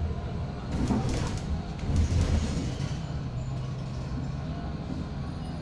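Cabin ride noise of a Foton BJ5120 electric trolleybus on the move: a steady low rumble from the road and drive. A brief hiss comes about a second in, and the rumble is louder around two seconds in.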